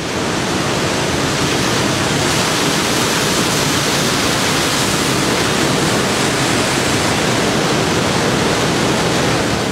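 Heavy sea surf breaking over coastal rocks: a loud, steady rush of water and spray that fades in at the start and fades out at the end.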